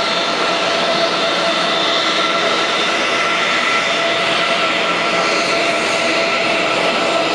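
Boeing 767 twin jet engines running at taxi power: a steady jet whine with several high tones held throughout.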